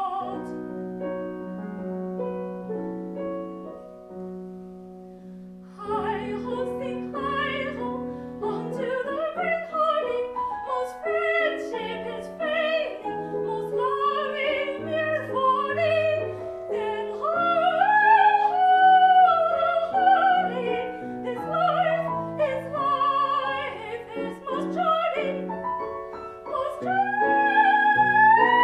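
Solo soprano singing an English art song with piano accompaniment. The piano plays alone at first, and the voice comes in about six seconds in. The voice climbs with vibrato to a high held note near the end.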